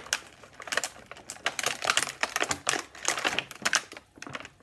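Rapid, irregular clicking and crackling of hard plastic as Bakugan toys are worked out of their starter-pack packaging, easing off briefly about four seconds in.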